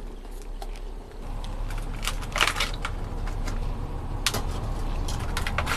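Clear plastic food tray crinkling and clicking as scallops in their shells are pulled out of it and set into a stainless steel steamer tray, in scattered short clicks and rustles. A low steady hum sits underneath, coming up about a second in.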